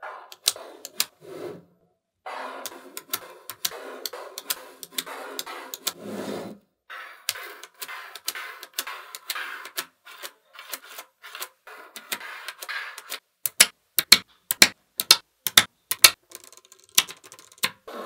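Small neodymium magnet balls clicking and rattling as they snap together and are pressed into a flat slab. A run of sharper separate clicks comes in the later part.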